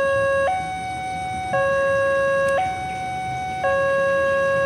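Electronic railway level-crossing warning alarm sounding a steady two-tone pattern, switching between a lower and a higher tone about once a second, warning of an approaching train.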